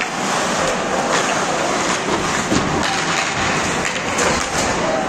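Ice hockey play: skates scraping and carving on the ice, with sharp clacks of sticks and puck at intervals, in a steady hiss of rink noise.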